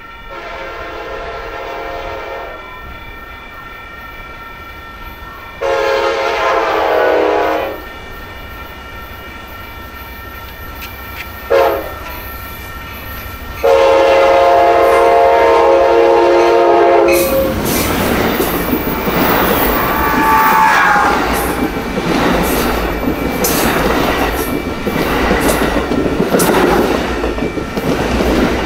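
Amtrak F59PHI diesel locomotive's chord air horn sounding long, long, short, long, the grade-crossing signal, as the train approaches. Then the train passes close by, with the locomotive running and the wheels of the bilevel cars clattering over the rails.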